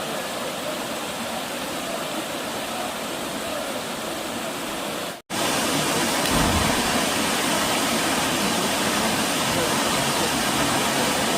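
Waterfall rushing, a steady roar of falling water. It cuts out for an instant about five seconds in and comes back louder.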